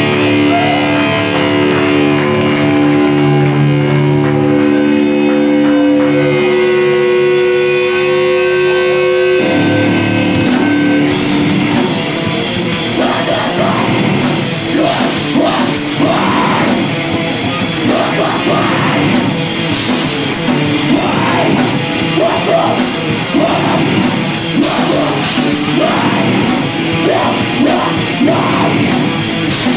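A heavy rock band playing live. Sustained, ringing guitar chords come first, then about ten to eleven seconds in the drums and the full band come in.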